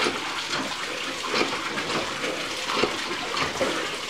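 Water splashing and sloshing in a small inflatable paddling pool as two children move about in it, in short irregular splashes.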